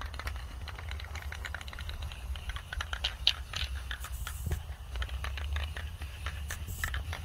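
Aerosol spray paint can spraying in short hissing bursts, one about four seconds in and another near the end, with the can's mixing ball rattling and clicking as it is moved. A steady low rumble runs underneath.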